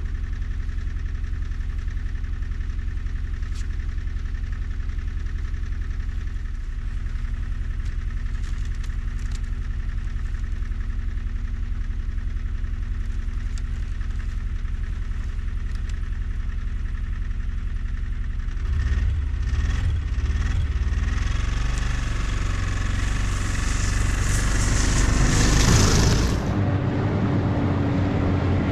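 Snowmobile engine idling steadily as it warms up after a cold-morning start, then, about two-thirds of the way through, getting louder as the machine revs up and pulls away, with a growing hiss that peaks shortly before the end.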